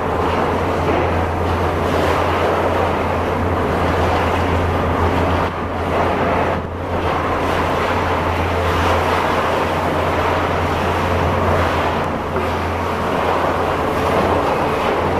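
Diesel engine and hydraulics of a Hitachi Zaxis 520 LCH high-reach demolition excavator running steadily, a constant low hum under a dense, even rush of machine noise.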